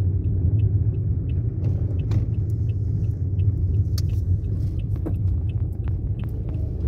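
Steady low rumble of a moving car heard from inside the cabin. A rapid, even ticking fades out a little over a second in, and a few scattered clicks follow.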